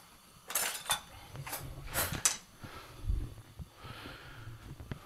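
Metal kitchen utensils rattling and scraping in a kitchen drawer in a few short bursts, then a low thump about three seconds in.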